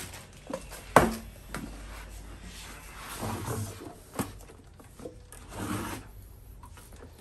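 Heavy steel inverter casing being handled and lifted out of its cardboard box: a sharp knock about a second in and another a little after four seconds, with softer handling noises between.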